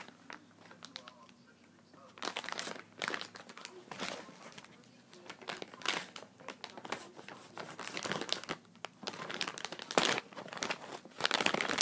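Packaging crinkling and rustling as it is handled and pulled apart, in irregular bursts. It starts about two seconds in and is loudest near the end.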